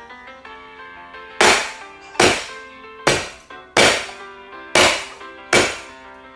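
Meat cleaver chopping through a cooked soy sauce chicken onto a cutting board: six loud, sharp chops about a second apart, starting about a second and a half in, over soft background music.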